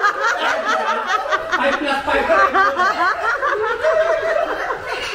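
Several people laughing together in quick repeated bursts, easing off near the end.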